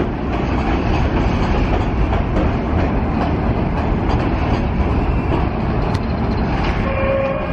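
Budd R32 subway train running along an elevated steel track: a steady, loud rumble and rattle of wheels on rail. A steady whine joins near the end.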